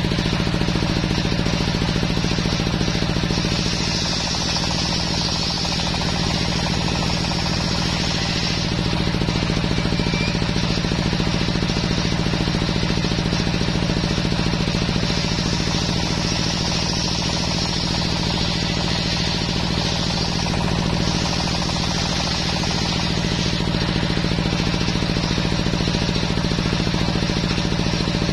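Belt-driven circular table saw running steadily, its blade ripping teak boards; the higher cutting noise swells in stretches, the longest from about three to eight seconds in and from about fifteen to twenty-one seconds in.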